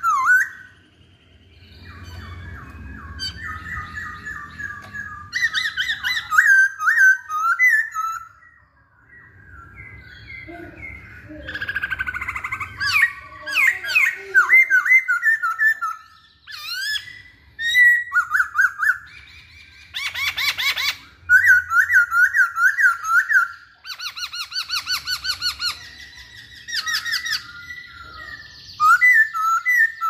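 Black-throated laughingthrush singing loudly in bursts of varied whistled phrases and fast runs of repeated notes, with short pauses between bursts.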